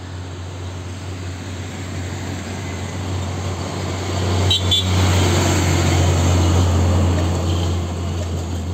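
Green Hino Ranger 500 diesel box truck approaching and passing close by. Its engine sound grows to a peak about five to seven seconds in, then fades as the truck moves away.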